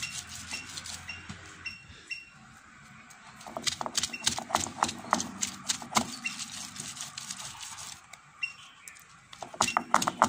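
Stone roller rocking and grinding over a granite grinding stone, crushing garlic: clusters of quick clacks and gritty scrapes, quieter for a second or two in between.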